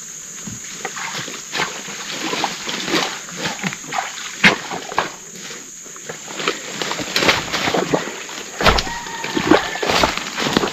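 Feet squelching and splashing through swamp mud and shallow water, in irregular wet steps.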